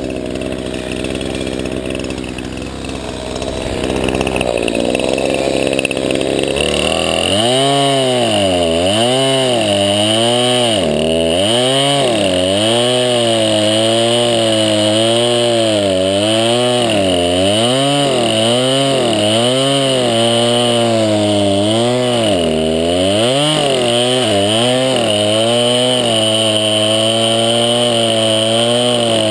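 Craftsman 20-inch 50cc two-stroke chainsaw running, quieter and lower for the first several seconds, then at high speed with its pitch swinging up and down about once a second. Near the end the engine holds a steady high pitch.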